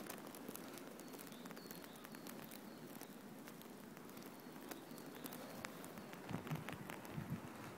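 Faint outdoor ambience with soft footsteps on paving and small ticks, with a few low thumps near the end.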